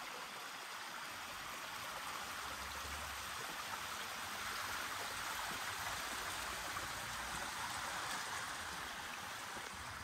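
Water flowing along a levada irrigation channel: a steady, even rush of running water.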